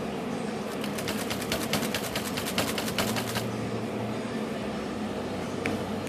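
1924 Underwood No. 5 manual typewriter clicking in a fast, even run of about two dozen clicks lasting under three seconds, then a single click near the end, over a steady low hum.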